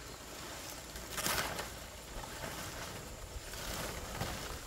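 Cut fan-palm leaves rustling as they are gathered by their stems and lifted into a bundle, with one louder rustle a little over a second in.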